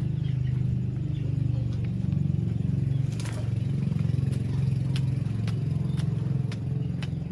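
A small engine running steadily at a low pitch, with sharp clicks about twice a second from around the middle onward.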